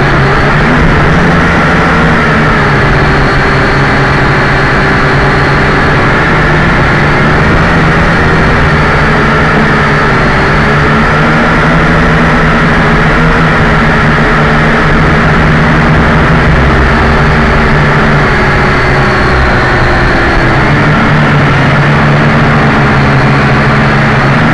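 JJRC H12C quadcopter's four motors and propellers, heard from its onboard camera in flight: a steady, loud buzzing whine with several pitches. The pitch wavers slightly with the throttle and dips briefly near the end.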